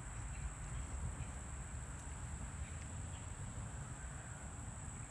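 Steady high-pitched drone of an insect chorus, over a low rumble.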